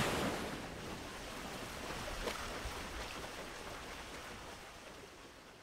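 Steady rushing road and wind noise of a car driving on a motorway. It is loudest about the start, then slowly fades out.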